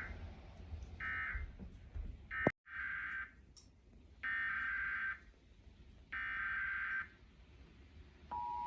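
Emergency Alert System SAME data bursts: a string of short, buzzy, high-pitched digital chirps, each under a second long and about a second apart. They are broken by a sudden cut about two and a half seconds in, after which three longer bursts follow. Near the end the steady two-tone EAS attention signal starts.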